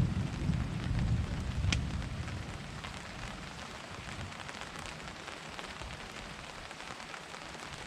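Rain falling steadily in a thunderstorm, with many small drop ticks and a low thunder rumble that dies away over the first two or three seconds.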